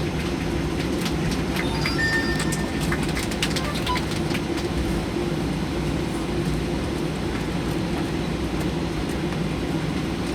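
Steady cabin noise inside a Boeing 737 rolling on the ground after landing: an even low rumble with a few faint clicks and rattles in the first few seconds.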